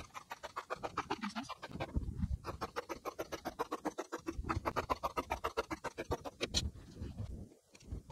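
A rapid, evenly spaced run of scratchy ticks, several a second with a few short breaks. It is the sped-up sound of velvet being measured and marked along a yardstick on the work table.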